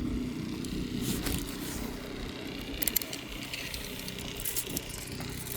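An engine running steadily, with a few short clicks and crunches over it.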